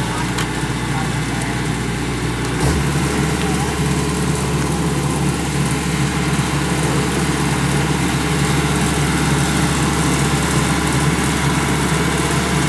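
Kubota DC-105X combine harvester's diesel engine running steadily, with its low hum stepping up in pitch about three seconds in as the engine is throttled up a little.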